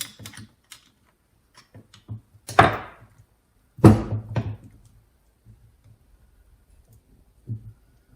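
Two loud thunks about a second apart, with a few fainter knocks, from metal gearbox parts being handled and worked into place.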